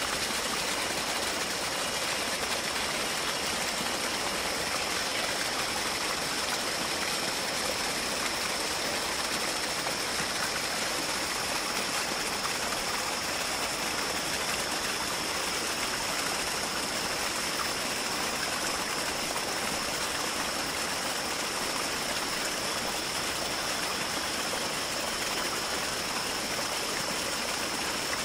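Steady rush of flowing water, like a stream, with a faint steady high-pitched whine over it.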